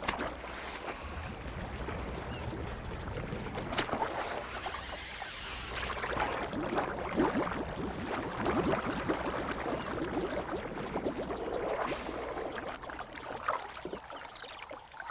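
Water splashing and churning as a crocodile thrashes and blows bubbles at the surface in a mating display, busiest in the middle of the stretch.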